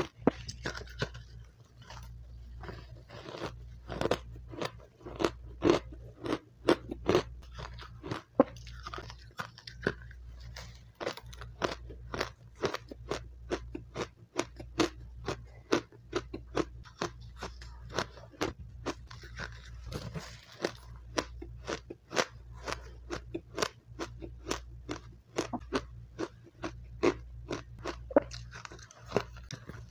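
Biting and chewing of powdery refrozen matcha ice, close to a clip-on microphone: a steady run of crisp crunches, about two or three a second.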